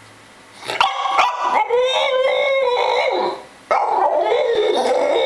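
A young French bulldog 'talking': two long, wavering, howl-like vocal grumbles, the first starting about a second in, the second after a short break. It is a protesting, complaining vocalisation.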